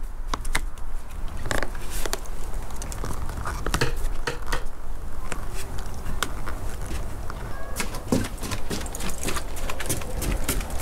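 Toy poodle puppy's paws and claws tapping and pattering on wooden deck boards: scattered light clicks, coming quicker near the end as the puppy runs and pounces. A steady low rumble underlies it.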